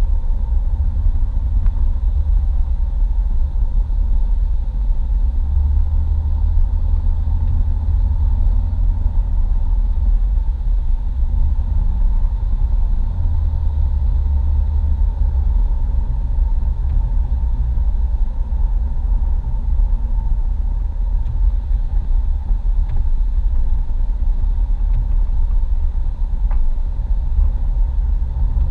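Steady low rumble of a car driving at highway speed, heard from inside the cabin: engine and road noise.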